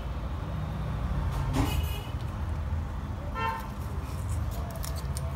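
A steady low vehicle rumble, with a short horn toot about three and a half seconds in and a brief higher tone at about one and a half seconds.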